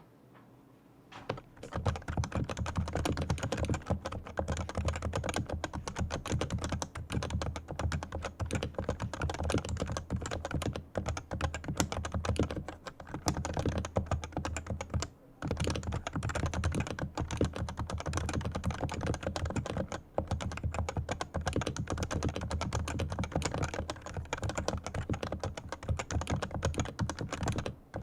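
Typing on a Leopold FC980C Topre electrostatic capacitive keyboard whose switches have been fully lubricated: rapid, continuous keystrokes that begin about a second and a half in, with a few short pauses.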